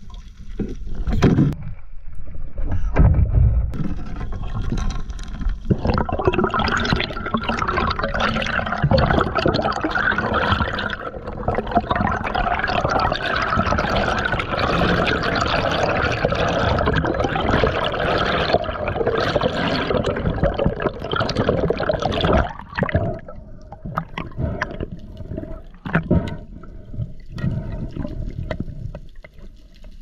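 Water running and splashing: a steady rush from about six seconds in until about twenty-two seconds in, with scattered splashes and knocks before and after.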